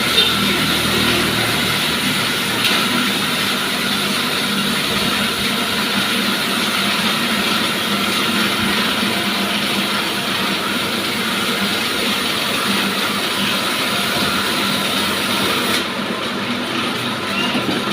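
Sawmill running steadily with a continuous mechanical drone and hiss. Near the end the high hiss drops away and it runs a little quieter.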